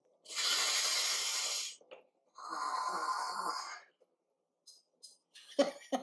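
A man taking two long, deep sniffs through his nose at a tin of beard butter held to his face, each lasting about a second and a half.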